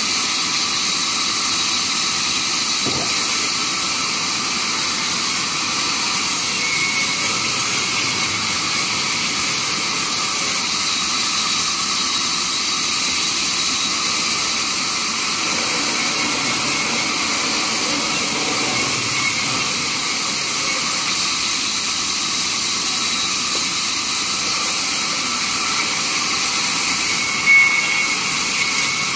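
Large vertical band saw running and cutting through a timber slab, a steady hissing saw noise of the blade in the wood. A brief squeak stands out near the end.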